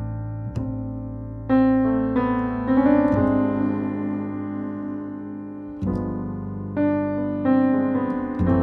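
Acoustic piano playing a slow jazz ballad: chords struck a few at a time, each left to ring and fade before the next.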